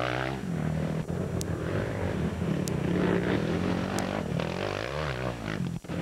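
Off-road motorcycle engines running and revving, their pitch rising and falling, with a brief drop in level near the end.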